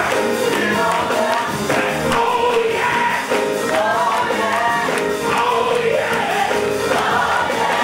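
Gospel music: a group of voices singing a melody together over band accompaniment.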